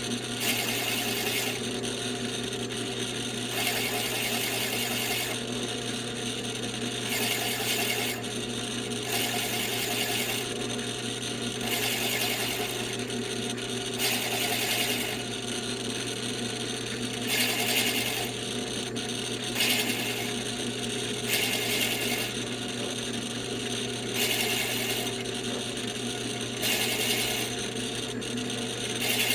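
A drill running steadily with a counterbore cutter scraping into the wooden stock; the rasping cutting noise swells and fades about once a second over a constant motor hum.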